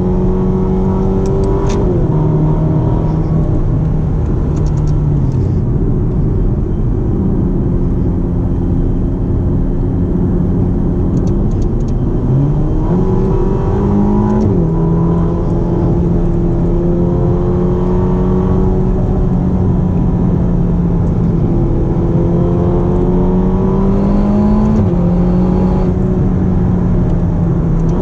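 Ferrari GTC4Lusso T's 3.9-litre twin-turbo V8 pulling under acceleration, heard from inside the cabin. The engine note climbs slowly and drops in steps at the gear changes, a couple of seconds in, about halfway through and near the end, with a quick dip and climb in revs just before the middle change.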